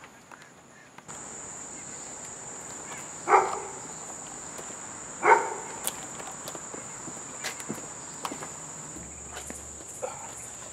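Insects trilling in a steady, high-pitched drone that starts about a second in. Two short, louder sounds stand out about three and five seconds in.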